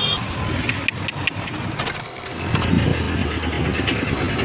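Street traffic noise with a motor vehicle engine running close by, and a few short clicks in the first second or so.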